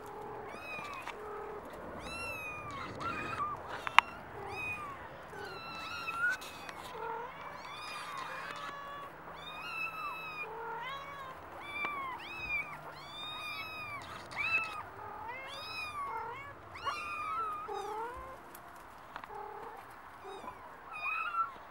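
Norwegian Forest Cat kittens mewing over and over in high, thin cries, several calls often overlapping, as kittens do when uneasy at being up on a high plank. A single sharp click comes about four seconds in.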